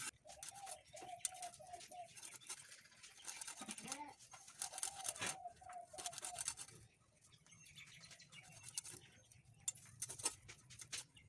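Faint scraping and small clicks of a baim eel being scraped and cut against a boti blade. A bird calls twice in quick runs of short repeated notes.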